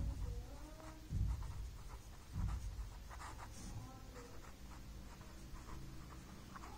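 Pen writing on paper: faint scratchy strokes, with a few low thumps in the first couple of seconds.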